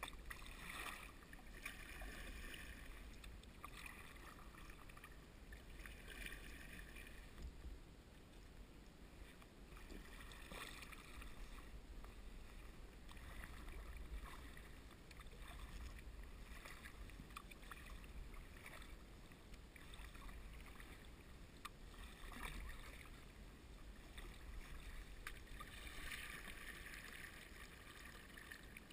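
Faint splashing and trickling of a kayak paddle dipping into calm water, in short washes every couple of seconds, over a low steady rumble.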